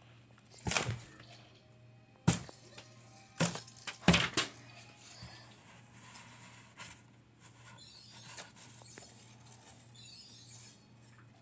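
Paper being handled, with several sharp crackles and knocks in the first half, then quieter rustling.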